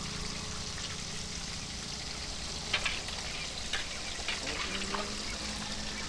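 A knife cutting dressed quail over a steel bowl: a few soft clicks and taps about halfway through, over a steady background hiss.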